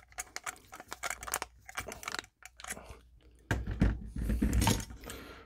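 Screwdriver turning the cable-clamp screw on a metal electrical box: a string of small clicks and metal scrapes. Past the middle come louder knocks and rubbing as the box and its cables are handled.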